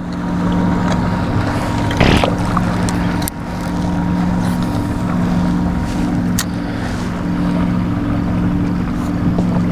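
Steady low hum of a boat motor running over wind and water noise, with a brief bump about two seconds in.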